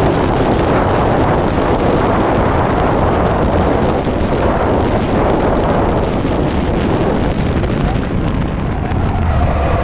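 Loud, steady wind rush on the microphone over a racing vehicle's engine at speed.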